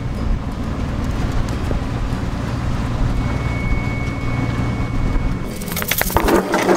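A car driving, a steady low rumble of engine and road noise. About five and a half seconds in it gives way to a quick run of clatter and knocks.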